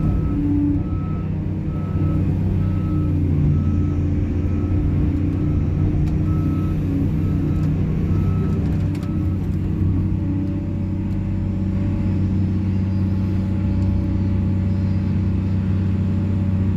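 Heavy diesel machinery engine running steadily, with a motion alarm beeping about once a second that stops just past halfway.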